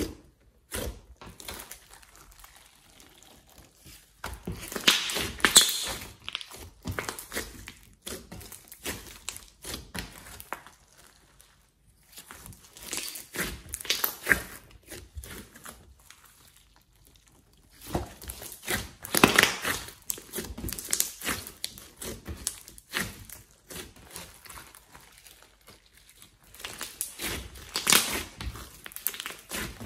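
Hands kneading, poking and stretching a large lump of glittery slime mixed with clay and floam beads: sticky crackling and popping, in four louder spells with quieter squishing between.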